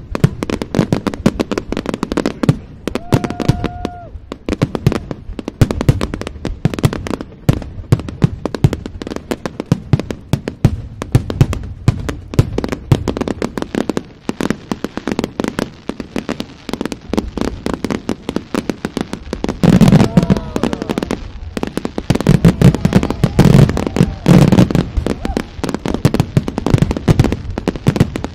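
A large fireworks display firing a dense barrage: rapid, overlapping bangs and crackles of bursting shells, many a second, with no pause. There is a brief steady whistle about three seconds in, and the barrage grows louder about twenty seconds in.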